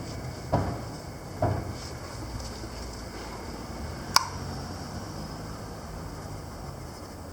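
Welding positioner under test, its drive giving a steady low hum. Two dull knocks come in the first second and a half, and one sharp click a little after four seconds.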